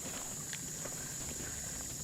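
Steady high-pitched drone of insects, with faint scattered clicks and ticks.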